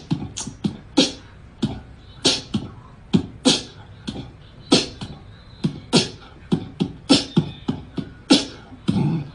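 A quick, uneven run of sharp percussive clicks and thumps, nearly three a second, in a beat-like pattern.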